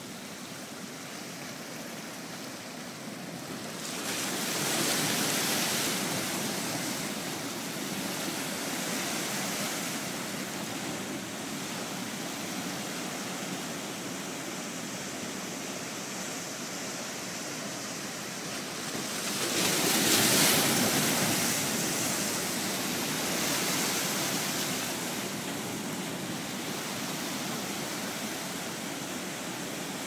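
Ocean waves breaking against a rock jetty and washing over the boulders in a steady rush of surf. The sound swells twice as waves crash, about four seconds in and, loudest, about twenty seconds in.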